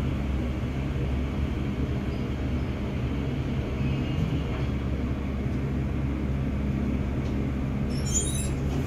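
Elevator car travelling: a steady low hum and rumble from the moving car, with a brief faint clatter near the end.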